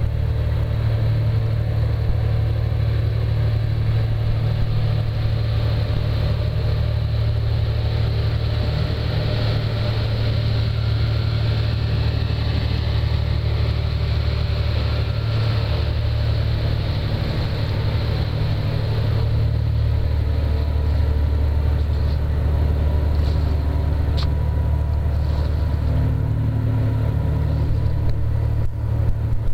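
Boat engines running at speed: a steady low engine drone with a rush of water and engine noise that swells in the middle and eases off after.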